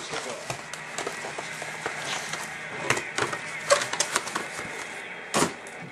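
A sealed trading-card box and its wrapping being handled by hand: irregular crinkling, clicks and rustles, with one louder rustle about five seconds in.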